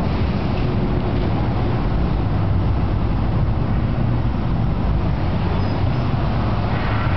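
Cars driving past close by at low speed on a city street: a steady low rumble of engines and tyres on rough asphalt.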